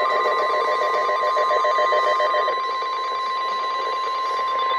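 NOAA Weather Radio 1050 Hz warning alarm tone: one steady, shrill single tone that alerts listeners that a warning broadcast follows. A faint, evenly repeating pulsing sits under the tone for the first half.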